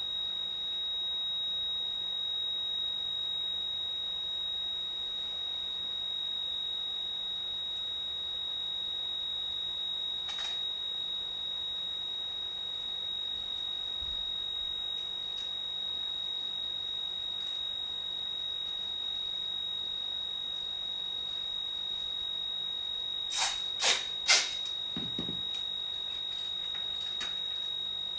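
A steady, high-pitched electronic sine tone from small electronic devices set out on the floor. A faint click comes about ten seconds in, and near the end three loud, sharp clicks in quick succession are followed by a low thud.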